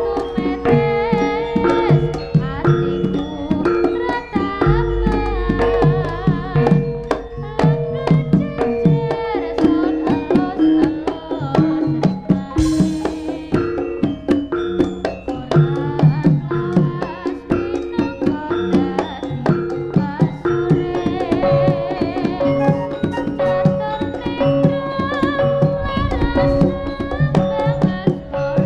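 Live Javanese jaranan music: hand drums beating a busy rhythm over long held pitched tones, with a short burst of noise about halfway through.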